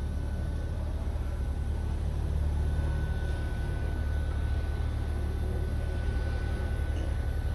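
Steady low mechanical hum with a faint, steady high-pitched tone above it.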